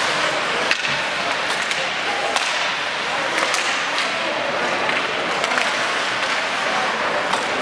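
Youth ice hockey play: irregular sharp clacks of sticks striking the puck and ice, over a steady rink din with faint voices.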